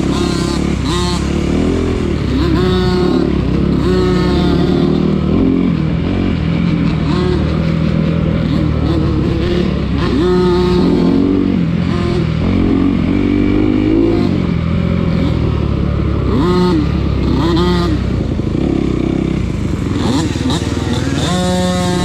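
Dirt bike engine revving up and dropping back again and again, its pitch rising and falling every second or two under throttle changes over rough off-road terrain.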